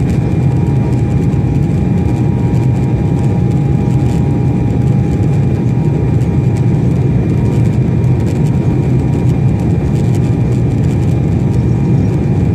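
Jet airliner cabin noise during the climb after takeoff, heard from a window seat over the wing: a steady engine and airflow roar, heaviest in the low end, with a faint constant whine on top.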